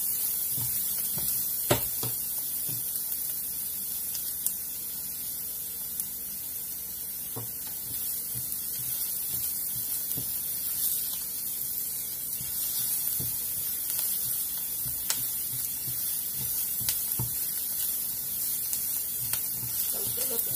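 Chopped garlic and onion frying in oil in a stainless steel pan, a steady sizzling hiss, with occasional clicks and scrapes of a spatula stirring against the pan.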